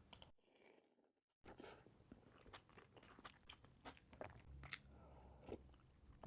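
Close-miked chewing of pho, with short wet mouth clicks and smacks scattered throughout. The sound cuts out briefly about a second in.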